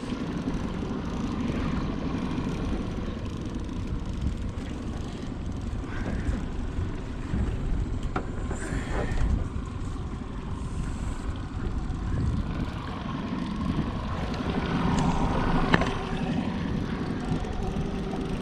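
Boat motor running steadily at trolling speed, with low wind rumble on the microphone and a few faint clicks.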